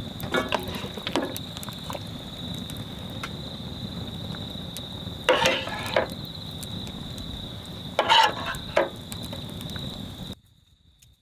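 Metal utensils clinking and scraping against stainless steel bowls and cooking pots as food is served, in two short clusters about five and eight seconds in. A steady high-pitched insect drone runs beneath, and the sound drops away suddenly near the end.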